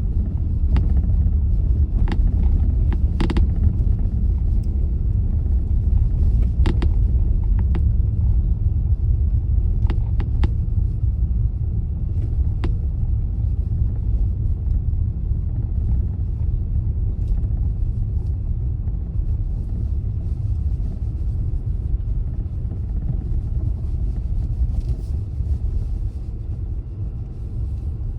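A car driving: steady low rumble of the engine and tyres on the road, with a few short sharp clicks or knocks in the first dozen seconds.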